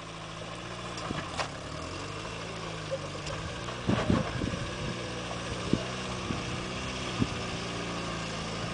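Lifted 4x4 pickup's engine running at low revs as the truck crawls over rock, with a few short knocks and clunks, the loudest about four seconds in.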